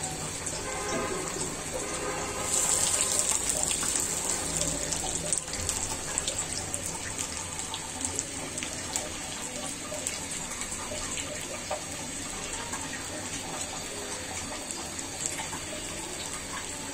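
Piaju, lentil fritters, deep-frying in hot oil in an iron karahi: a steady sizzle with constant small crackles. It grows louder and brighter for a few seconds, starting about two and a half seconds in.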